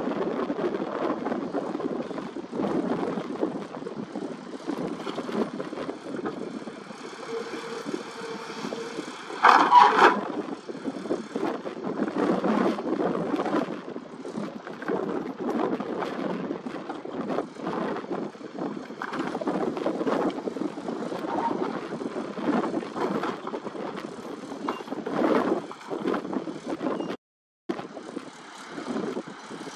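Hydraulic excavator's engine running under load as its long boom and vibratory-hammer clamp lift and swing a steel sheet pile. About ten seconds in there is one loud clank, the loudest moment.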